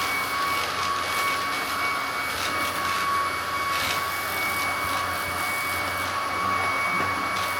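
Hoover Commercial CH91600 cordless upright vacuum running steadily, its brushless motor giving a steady high whine over the rush of air.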